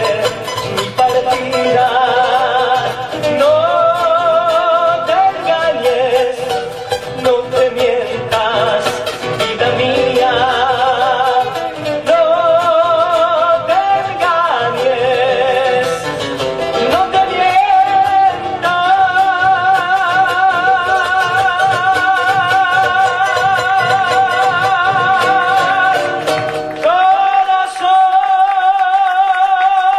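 Argentine folk music: an instrumental passage where a melody of long, wavering notes with strong vibrato plays over a full accompaniment. Near the end the low accompaniment drops out for a couple of seconds, leaving the melody alone.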